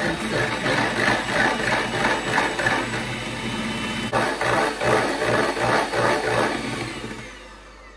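Electric hand mixer running, its beaters whipping double cream in a stainless steel bowl; the motor sound fades away near the end.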